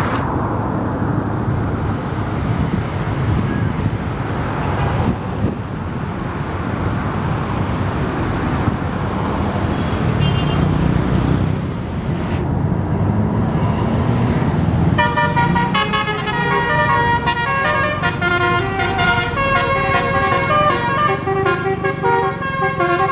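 Road and engine noise for the first fifteen seconds or so. Then a bus's telolet horn, the Indonesian multi-trumpet musical horn, plays a melody of changing notes to the end.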